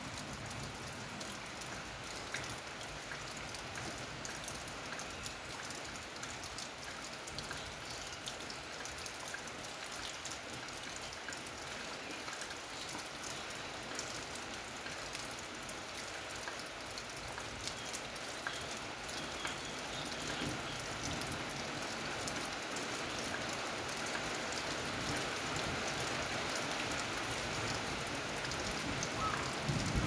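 Steady rain falling, with many individual drops ticking sharply on a hard surface; the rain grows gradually louder toward the end.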